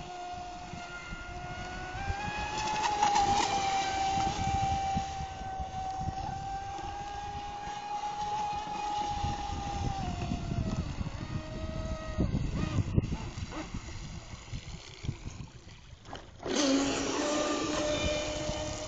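Electric motor whine of a Cyber Storm 33 mono RC speedboat running at speed on the water. The pitch rises about two seconds in and falls back around ten seconds. Near the end the sound turns suddenly much louder, with a rushing spray, as the boat passes close.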